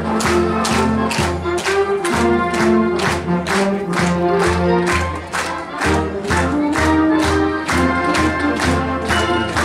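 Marching band playing: brass (trumpets, trombones, sousaphones) holding and changing chords over a fast, steady drum beat of about three strokes a second.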